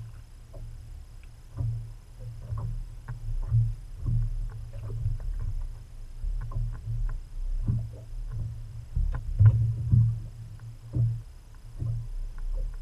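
Water lapping and slapping against the hull of a bass boat, an uneven low rumble, with many irregular knocks and clatters on the deck as a fish is landed in a landing net.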